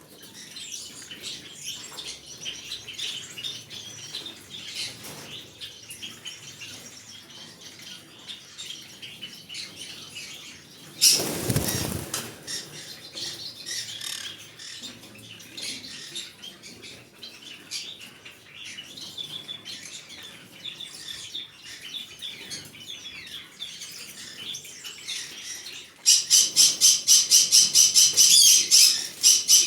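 Green-cheeked conure chirping and chattering softly, with one brief loud whoosh about eleven seconds in. Near the end it breaks into a loud, rapid, even run of squawks, about five a second.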